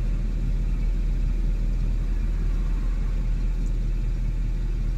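Steady low rumble inside a car's cabin while the car waits at a red light, with the hum of traffic crossing in front.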